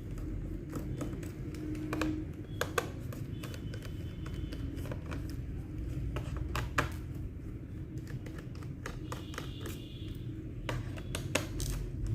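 Irregular light clicks and taps from handling a laptop's plastic case and small tools, over a low steady background rumble.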